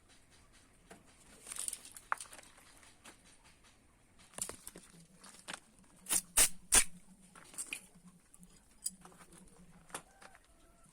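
Hand work on old bicycle parts: scattered scrapes and small clicks, with three sharp knocks in quick succession a little past the middle.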